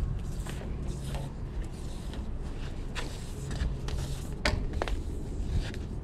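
Garden hose being handled and uncoiled, with footsteps and a scatter of short clicks and scuffs, over a low steady hum.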